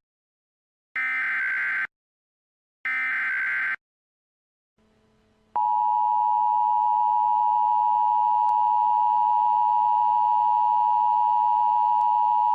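Emergency Alert System header: the tail of one burst of screechy digital data and two more like it, each about a second long and a second apart. After a short gap, a loud, steady attention-signal tone starts about five and a half seconds in and holds without change.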